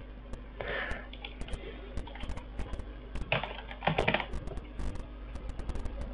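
Computer keyboard keys being typed in short, irregular runs of clicks, with two brief louder noises, one about a second in and one around three to four seconds in.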